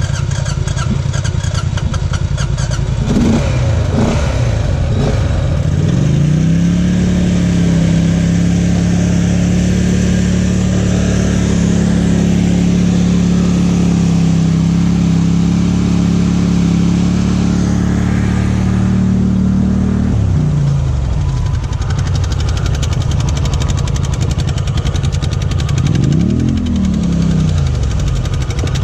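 Off-road vehicle engine running on a trail, climbing in revs about six seconds in, holding steady high revs until about twenty seconds, then dropping back, with one short rev-and-release near the end.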